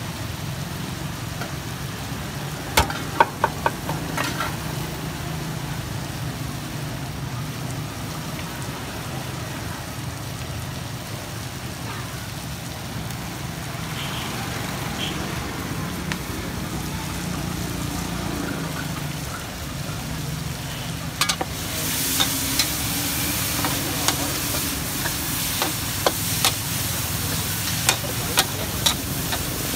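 Meat frying in a steel wok over a gas burner, with a few sharp knocks about three seconds in. About 21 seconds in the sizzle suddenly gets louder, and a metal ladle starts scraping and clanking against the wok as the food is stirred.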